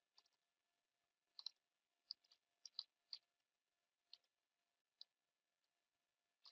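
Faint computer keyboard typing: about a dozen sharp key clicks at an irregular pace, the keystrokes of a short shell command and the Enter key.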